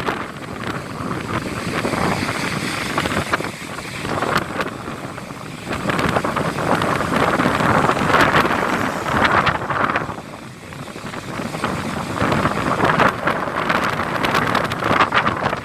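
Strong gusting wind buffeting the microphone over heavy storm surf, the noise swelling and easing every few seconds. This is the wind and swell of a coast ahead of a typhoon.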